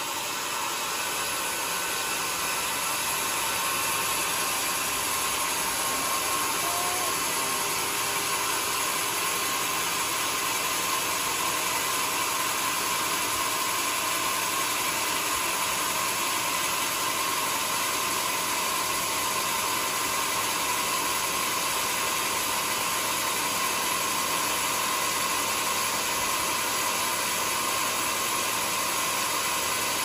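A large sawmill band saw running steadily, a continuous even mechanical noise with a faint steady whine.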